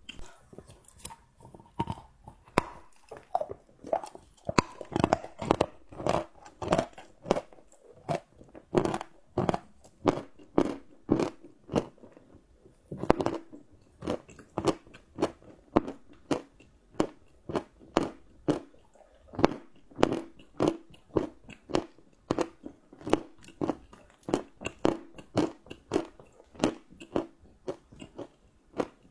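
Close-up chewing of crunchy chocolate: rapid, steady crunches, about two to three a second, with louder bites here and there.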